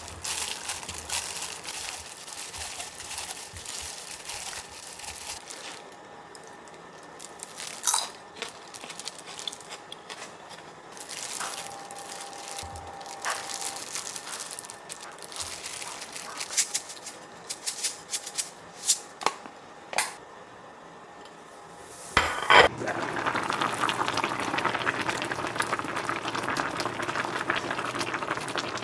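Plastic food glove crinkling, with scattered small clicks and knocks, as seasoned chili pieces are handled and set on a plate. After a sharp knock about 22 seconds in, a pot of spicy braised chicken stew (dakbokkeumtang) bubbles at a steady boil.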